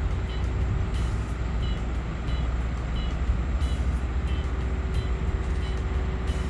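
Heavy diesel earthmoving machinery running with a steady low rumble, with short high-pitched beeps repeating about one and a half times a second, like a reversing alarm.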